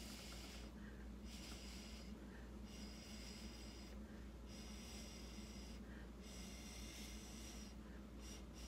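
Soft, breathy puffs of air blown through a drinking straw across wet acrylic paint to smooth out the poured lines, coming in regular puffs about every one and a half seconds.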